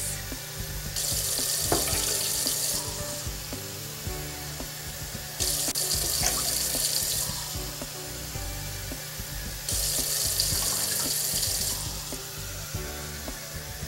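Kitchen tap running water into a plastic measuring cup that is emptied into a saucepan, cup after cup. The splashing comes in three spells of about two seconds each, roughly four seconds apart.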